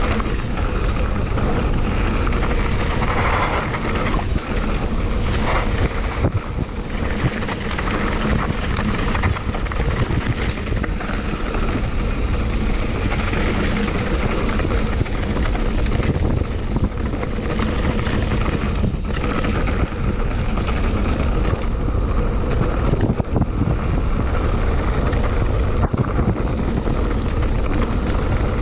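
Wind rumbling on the microphone together with the rattle of a mountain bike going downhill over a rough, rocky dirt road: tyres crunching over loose stones and a steady run of small knocks and clatters from the bike.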